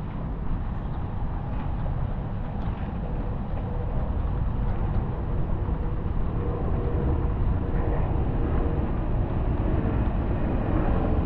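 Steady low rumble of wheels rolling over a paving-stone path, growing a little louder partway through.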